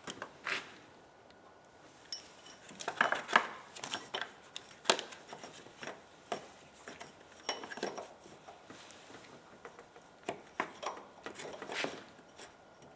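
Metal hand tools and engine parts clinking and tapping against each other in irregular knocks, with clusters of sharper clinks about three to five seconds in, around eight seconds and again near the end.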